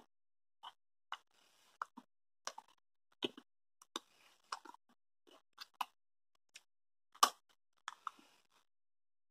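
Mouth chewing a piece of chewy taffy candy: irregular wet smacks and clicks, about one or two a second.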